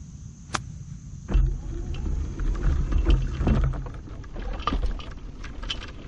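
A golf club strikes the ball once, a sharp click about half a second in. It is followed by a few seconds of loud low rumbling and scuffing as the camera is picked up and carried.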